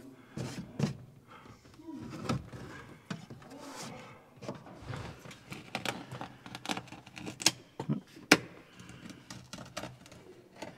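Hand work on a truck windshield's rubber seal: scattered light clicks, taps and rustles as a cord is pulled through the seal to draw its lip over the edge. Two sharper clicks stand out about seven and eight seconds in.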